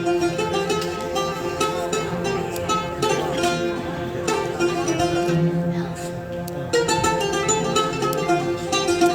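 Music: a plucked string instrument playing a flowing melody of quick notes, dropping to a lower, held tone for about a second past the middle before the melody resumes.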